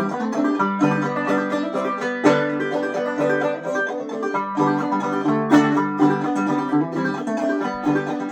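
Five-string banjo played clawhammer style in open G tuning, an instrumental break of the tune with a steady rhythm of brushed and plucked notes.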